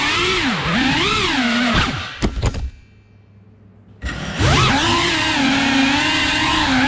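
FPV drone's electric motors and propellers whining, the pitch rising and falling with the throttle. About two seconds in there are a few sharp knocks, and the motors drop almost to silence for over a second before spooling back up.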